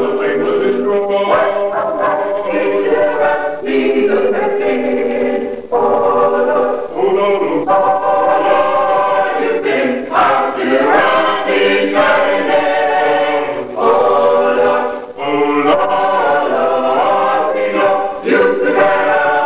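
Mixed gospel choir of men and women singing a cappella in harmony, with held chords and short breaks between phrases.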